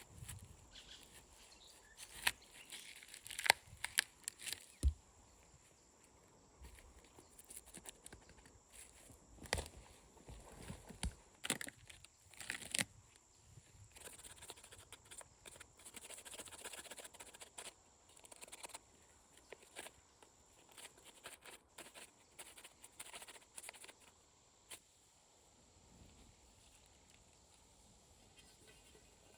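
Rustling and crackling of twigs and brush being handled, with scattered sharp snaps and knocks, the loudest about three to five seconds in and again around eleven to thirteen seconds.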